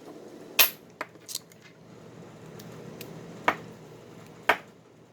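Sharp metal clicks and taps, about five spread out, as a lock pick and tension wrench are handled and set against a padlock.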